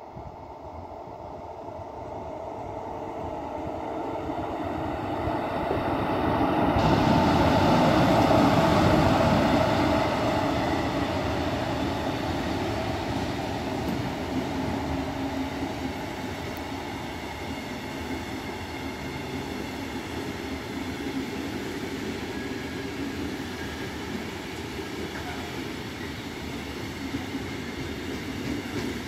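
Freight train of tank wagons hauled by an electric locomotive approaching and passing close by. The rumble builds to its loudest as the locomotive goes past about eight seconds in, then the tank wagons roll by steadily, with some wheel clatter near the end.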